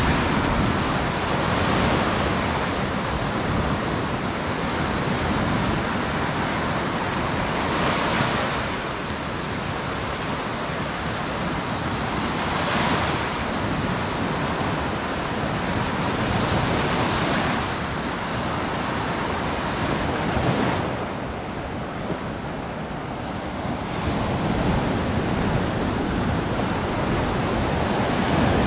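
Sea waves washing onto a beach, the surf swelling and fading in surges a few seconds apart, dipping quieter for a few seconds past the middle.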